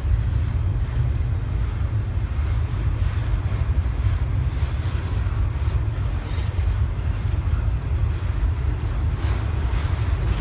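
CSX double-stack intermodal freight train rolling past, its cars rumbling steadily on the rails, with wind buffeting the microphone.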